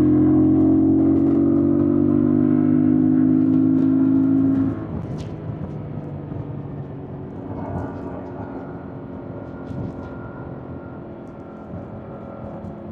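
2025 Yamaha MT-07's 689 cc parallel-twin engine pulling loudly under throttle, its note slowly dropping in pitch. About four and a half seconds in the throttle closes and the level falls sharply; the engine runs on quietly as the bike coasts, under wind and road noise.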